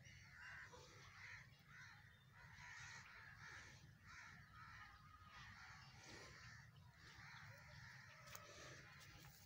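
Faint bird calls, short and repeated about every half second, over a steady low rumble.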